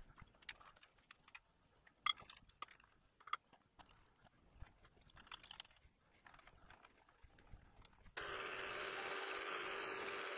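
Light clinks and knocks of an aluminium workpiece and vise parts as the piece is flipped and clamped on the milling machine. About eight seconds in, a steady running noise from the milling machine starts abruptly and holds at an even level.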